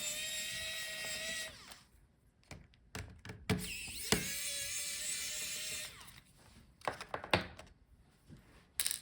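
Small electric screwdriver running in two bursts of a steady whine, backing out the small screws of the laptop's DC power jack bracket, followed by a few light clicks near the end.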